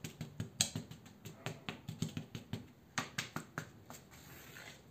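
Glue bottle and small brush dabbing and tapping on cardboard as white glue is dotted onto it: a quick run of light clicks, about five or six a second, with a short gap and a slightly louder tap about three seconds in, then a soft scratchy brushing near the end.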